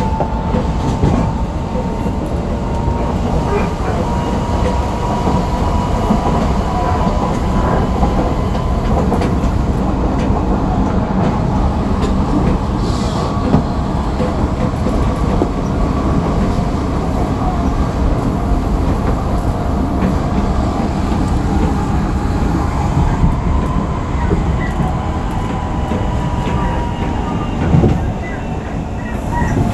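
Running noise inside an Odakyu 3000-series electric train's motor car at speed: wheels rumbling on the rails under a steady whine from its Mitsubishi six-pole induction traction motors, which rises slightly in pitch and then slowly falls back. A few sharp clicks from the track.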